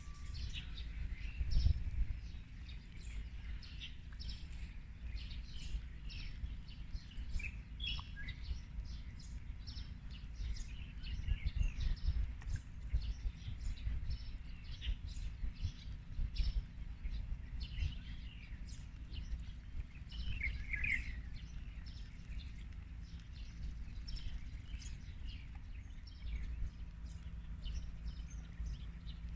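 Several small birds calling and chirping, with many short high notes throughout, over a steady low rumble.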